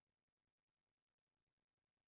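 Silence: the audio is essentially digital silence, with no audible sound.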